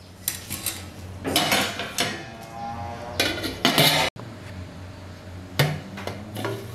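Metal lid and ladle clattering on a stainless-steel cooking pot as it is covered: several clinks and clatters with brief metallic ringing, then a single sharper knock on the lid near the end.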